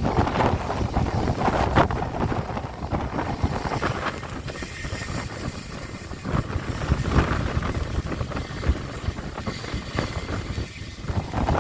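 Airbus A320 jet engines running as the airliner taxis, heard from outside, mixed with gusty wind buffeting the microphone in uneven swells.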